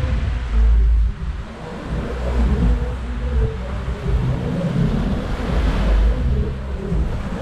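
Wind buffeting an action camera's microphone in gusts, a heavy low rumble that swells and drops, over a steady hiss of surf.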